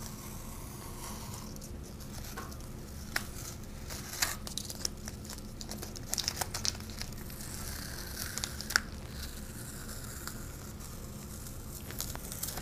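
Blue painter's tape being peeled off watercolor paper and crumpled into a ball: quiet, irregular crackling and short ripping sounds.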